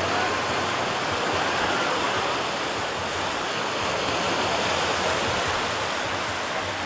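Small waves breaking and washing up onto a sandy shore: a steady wash of surf.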